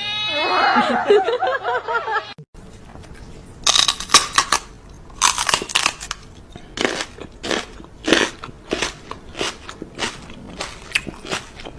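Wavering, pitched cries for the first two seconds, then, after a short break, loud crunching that repeats about one and a half times a second, like something crunchy being chewed.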